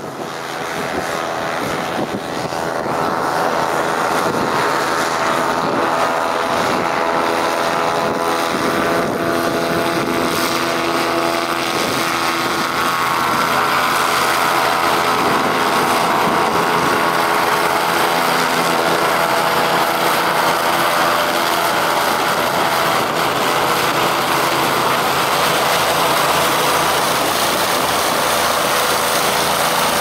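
Christy 463 PC hovercraft running at speed: its engines and ducted thrust propeller make a steady, loud drone over the hiss of spray. The sound grows louder over the first few seconds as the craft approaches, then holds steady.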